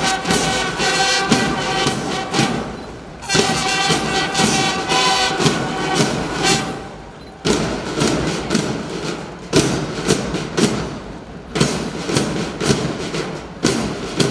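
School marching band of brass and percussion playing: trumpets, euphoniums and tubas sound phrases of about three seconds with short breaks between, over steady drum beats.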